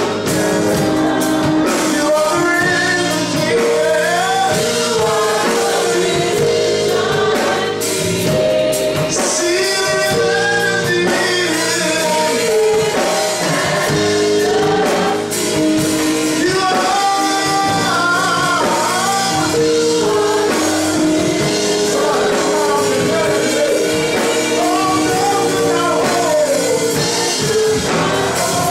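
A gospel choir singing a worship song with live instrumental accompaniment, the voices holding long sustained notes.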